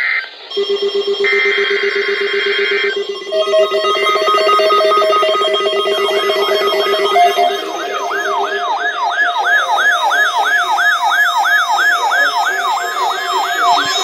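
Several NOAA weather alert radios going off together for an EAS Amber Alert: a burst of the EAS SAME header's digital data tones, then the radios' alarms sounding at once, pulsing beeps joined about six seconds in by a warbling siren tone that sweeps up and down about three times a second.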